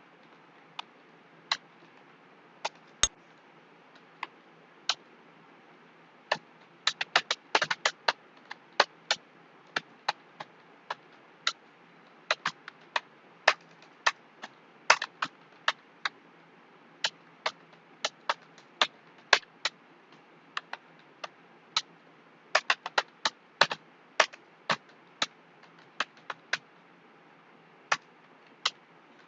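Typing on a computer keyboard: irregular keystroke clicks, a few scattered ones at first, then quick runs of several keys broken by short pauses.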